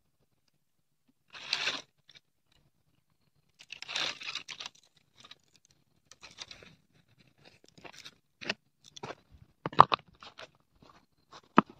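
Dry twigs and brush crunching and rustling as they are handled on dry ground: two longer rustles, about a second and a half in and again about four seconds in, then a run of short sharp cracks and knocks from sticks and flat stones being set together for a stone cooking hearth, the loudest near the end.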